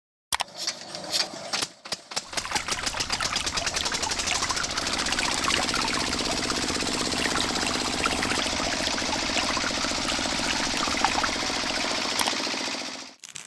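A small motor-driven machine running with a rapid, even mechanical clatter, cutting off suddenly near the end.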